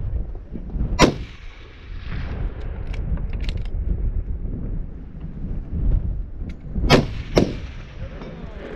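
Bergara HMR 6.5 Creedmoor rifle shots: a sharp crack about a second in, another about six seconds later, and a weaker crack half a second after that. Wind rumbles on the microphone throughout.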